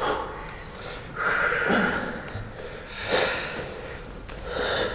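Heavy breathing from exertion during a hip-dip plank: several forceful exhales a second or two apart, one with a short falling vocal sound.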